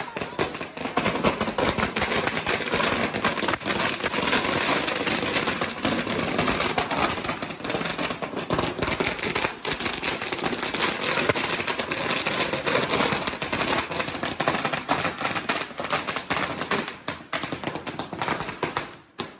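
A long string of firecrackers going off on the ground: rapid, unbroken crackling bangs that keep going steadily and stop abruptly near the end.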